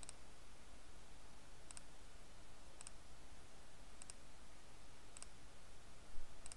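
Computer mouse button clicking, about six faint single clicks roughly a second apart, each a quick press-and-release double tick, paging through listing photos. A faint steady low hum runs underneath.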